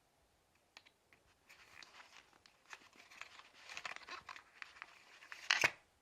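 Packaging being handled during a phone unboxing: small clicks and crinkling, rustling paper or plastic that builds up, ending in a short, louder rasp near the end.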